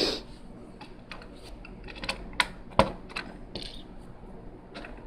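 Plastic Lego pieces clicking and tapping as they are handled during building: about ten sharp, irregularly spaced clicks, the loudest a little past halfway.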